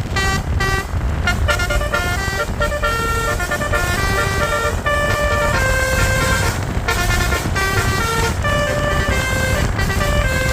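A bus's Basuri multi-tone telolet horn plays a fast melody of short notes that step up and down in pitch. A steady low vehicle rumble runs underneath.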